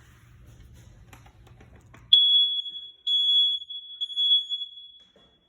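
Smoke detector sounding its test alarm: a piercing high tone starts about two seconds in, swells in about three loud pulses, and fades out after roughly three seconds. It gives only this one round of beeps.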